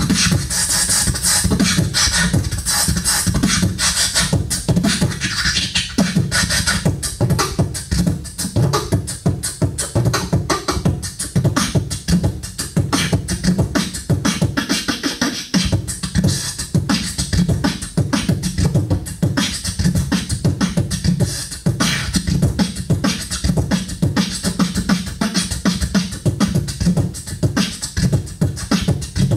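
Solo beatboxing into a handheld microphone: a fast, continuous run of mouth-made drum sounds, sharp clicks and hi-hat-like hisses over a deep, heavy bass.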